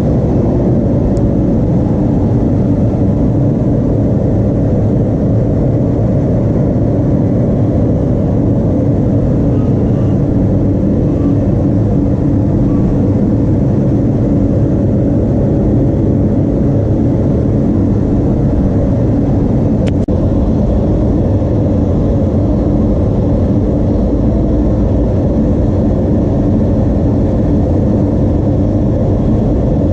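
An engine running steadily at a constant speed, with a single faint click about twenty seconds in.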